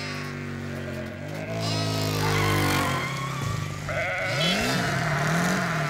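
A flock of sheep bleating, with wavering, overlapping calls. About four seconds in, a motorcycle engine joins, revving with its pitch rising and falling several times.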